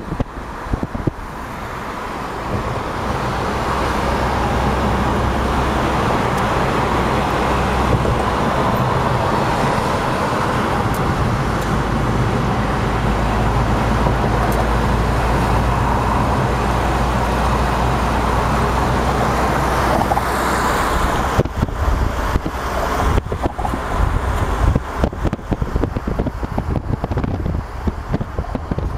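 Steady road noise inside a taxi moving at expressway speed: engine hum under tyre and wind roar, building over the first couple of seconds. About 21 seconds in it turns to uneven, gusty wind buffeting on the microphone.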